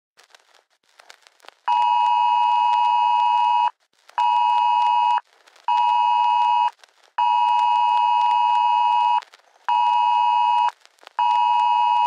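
Emergency Alert System-style two-tone attention signal, beeping in a long-short-short pattern twice over: a two-second tone, then two one-second tones. It starts after faint crackling clicks, about two seconds in.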